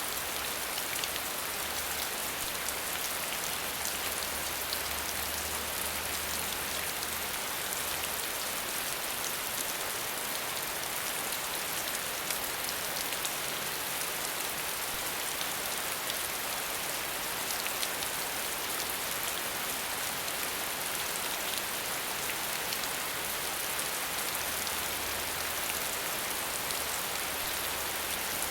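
Falling water: a steady, even hiss with faint patter in it.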